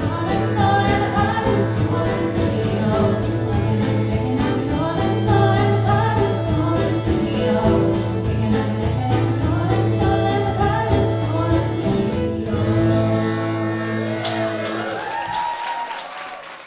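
Live Irish traditional folk band playing the closing bars of a tune, with a steady low note under the melody. The music thins out about 13 seconds in, and the last notes ring out and fade away near the end.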